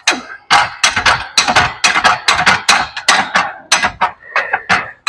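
A small jack being pumped to lift a snowblower subframe: quick metallic clacks and knocks, about three or four a second.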